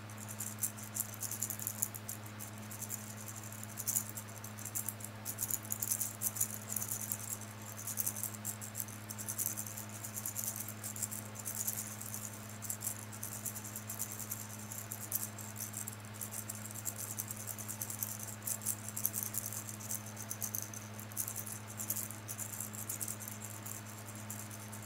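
Close-miked gum chewing: a dense, irregular run of small wet clicks and smacks from the mouth, over a steady low hum.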